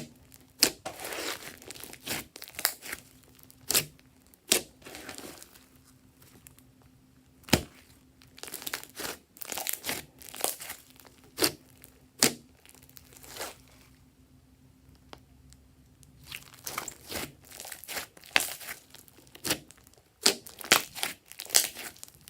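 Glossy slime being squished and stretched by hand, making irregular sticky clicks, pops and crinkly crackles, thick near the start and again near the end, sparser in the middle.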